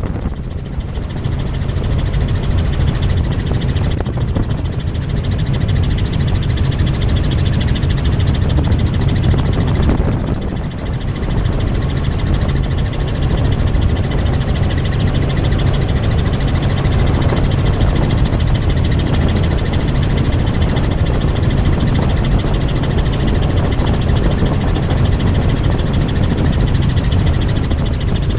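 Tour helicopter in flight: steady rotor and engine noise with a strong low throb and a constant higher hiss.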